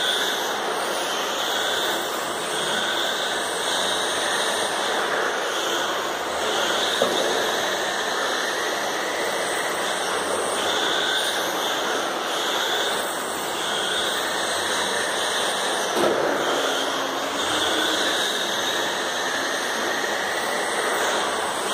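Radio-controlled touring car running laps on a carpet track: a continuous motor and drivetrain whine that rises and falls as the car accelerates and brakes through the corners, over a steady rush. Two brief knocks stand out, one about seven seconds in and one near sixteen seconds.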